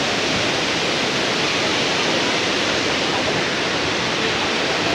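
Steady rush of flowing water, like a waterfall or fast stream, unchanging throughout.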